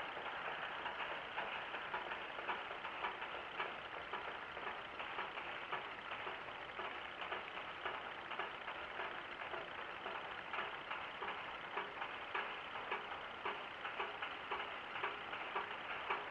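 Ryobi Ultra Power 800 spinning reel being cranked steadily as a soft lure is retrieved on an ultralight rod, giving a quiet, regular ticking of about three clicks a second.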